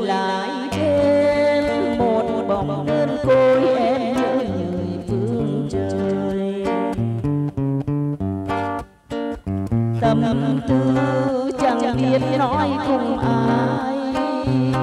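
A woman singing a Vietnamese song into a microphone, accompanied by an acoustic guitar, with a brief pause about nine seconds in.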